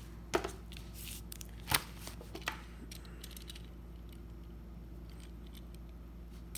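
A few sharp clicks and scrapes of small metal parts as a die-cast toy car is worked apart by hand, the loudest nearly two seconds in, over a steady low hum.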